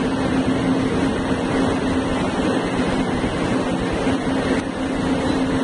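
A steady mechanical drone holding one low pitch, over an even rushing noise.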